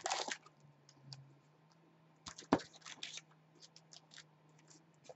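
Foil trading-card packs being taken out of a cardboard box and set down on a stack: light crinkling, scattered clicks and taps, and a sharper knock about two and a half seconds in. A faint steady low hum runs underneath.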